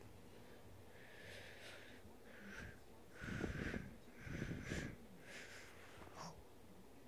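A series of about six short, raspy, wheezy breaths, the two in the middle louder than the rest.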